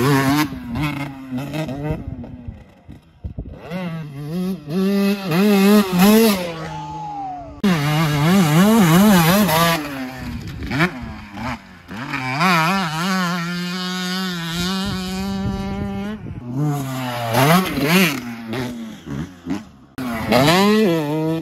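2003 Suzuki RM125 single-cylinder two-stroke dirt bike engine revving hard while being ridden. The pitch repeatedly climbs and drops with the throttle and gear changes, and the sound breaks off abruptly several times between short takes.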